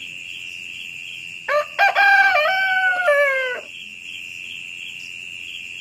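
A rooster crowing once, starting about a second and a half in: two short opening notes, then a long drawn-out call that falls in pitch at the end. A steady high-pitched whine runs underneath throughout.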